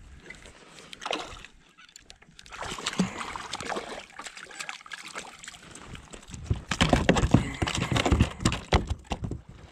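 Water splashing as a hooked fish is brought to the side of a plastic kayak, then, in the last few seconds, a burst of rapid slapping and knocking as the landed fish flaps on the kayak's deck.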